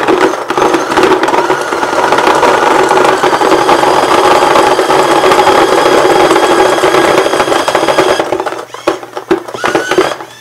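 ViewLoader Evlution 4 force-feed paintball hopper running its motor with a steady whine while paintballs rattle out of the feed neck in a rapid stream. After about eight seconds the stream thins to a few last clicks.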